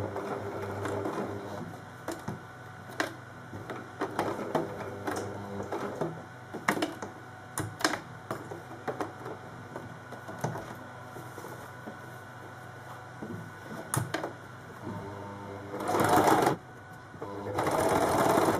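Electric sewing machine with a zipper foot stitching slowly across the bottom of a zip: a low motor hum at first, then slow, irregular needle strokes heard as sharp clicks, going very slowly so as not to break the needle on the zip teeth. Two louder, noisier bursts come near the end.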